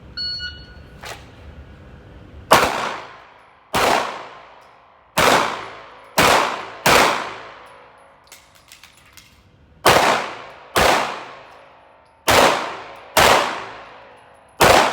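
Glock 19 9mm pistol shots, about ten, fired mostly in quick pairs, each ringing off with a long echo tail. A gap of about three seconds in the middle holds a few faint clicks before the shooting resumes.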